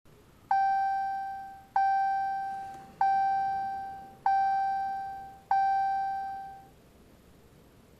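Dashboard warning chime of a 2015 Ram 1500 EcoDiesel: five identical single-pitch chimes about a second and a quarter apart, each struck sharply and fading away.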